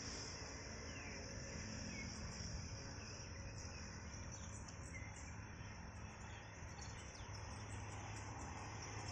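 Faint, steady high-pitched buzzing of an insect chorus in the trees, with a few scattered bird chirps.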